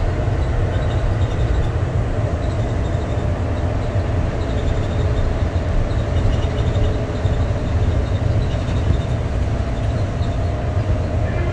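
Denver Airport train, a rubber-tyred automated people mover, running at speed through its tunnel, heard from inside the car: a steady, loud low rumble with a faint whine over it.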